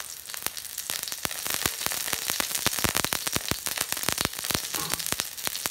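Hot oil in a wok sizzling with a steady patter of quick pops around two garlic cloves and a sprig of fresh rosemary over medium-low heat. The garlic and rosemary are infusing the oil with their flavour.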